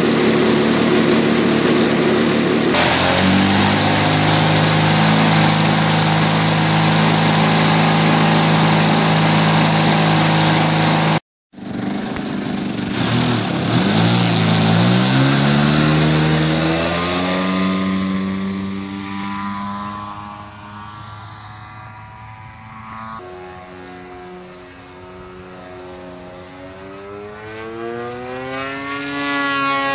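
Large radio-controlled aerobatic model plane's engine, running loud close by, then settling to a steady run on the ground. After a break it revs up, its pitch swooping up and down as the plane takes off and flies past. It fades as the plane climbs away and grows louder again near the end.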